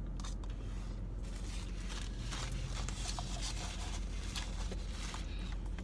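Plastic spoon scraping and clicking in a plastic cup of melted sundae, with a paper napkin rustling later on, over a steady low hum.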